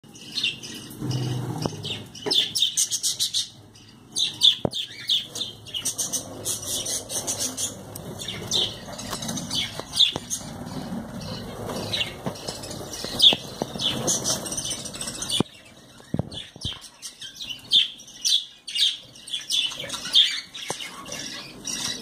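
Budgerigars chirping and chattering: many short, high chirps in quick succession, with a brief lull about two-thirds of the way through.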